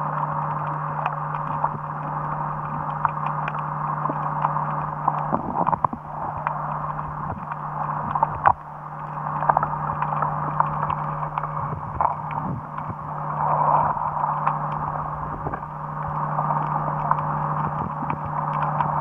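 Underwater sea ambience recorded in a rough sea: a rushing noise that swells and ebbs, scattered crackles and clicks, and a steady low hum under it all.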